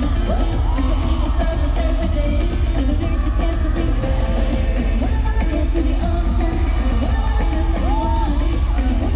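Live K-pop performance heard from the audience: a girl group singing over a loud amplified backing track with heavy bass.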